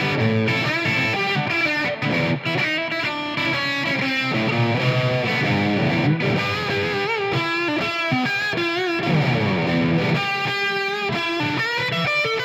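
Made-in-Japan Squier electric guitar played lead through an amp: quick runs of single notes with string bends, and a downward slide about three quarters of the way through.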